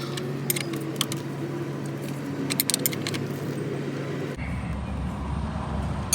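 Steady hum of a running vehicle engine, with a few light metal clicks and clinks from handling battery-terminal hardware: single clicks about half a second and a second in, and a quick cluster near three seconds. About four seconds in, the background changes abruptly.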